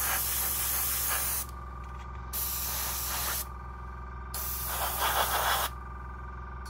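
Airbrush spraying acrylic paint in three bursts of hiss, the first about a second and a half long and the last the loudest, with a steady low hum underneath.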